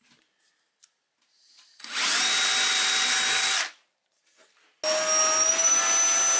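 A cordless drill runs for about two seconds, drilling a small hole through the point's track into the baseboard for the track pins. About five seconds in, a handheld vacuum starts up, its whine rising slightly as it gets up to speed, and runs steadily, cleaning away the drilling debris.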